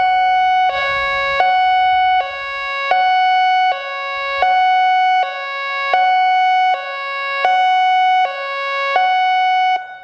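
American Signal I-FORCE electronic outdoor warning siren sounding its hi-lo test tone: a loud two-note alternation, high and low, each note held about three-quarters of a second, seven high-low cycles, stopping just before the end.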